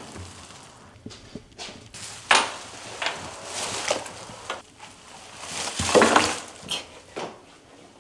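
A hunting saddle and its gear being handled: irregular rustles of nylon straps and clinks of the metal buckles and carabiners, with loud sudden clatters about two seconds in and again about six seconds in.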